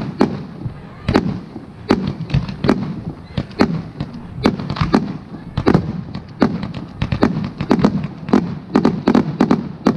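Aerial firework shells bursting in an irregular string of sharp bangs, roughly two a second, each trailed by a low rumbling echo.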